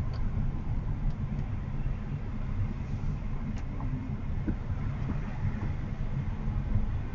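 Steady low rumble of tyre and road noise inside the cabin of a moving Honda HR-V e:HEV, with a few faint ticks.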